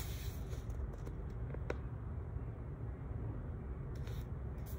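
Quiet room tone: a low steady hum, with faint handling noise from a paperback book being held up and a single light click about a second and a half in.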